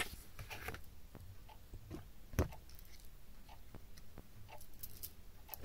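Quiet room with a few faint small clicks and rustles, and one sharper click about two and a half seconds in.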